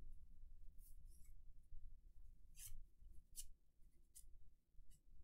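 Faint scratchy slides of 1983 Fleer cardboard baseball cards being flipped through a stack in the hands, a few short strokes about a second apart.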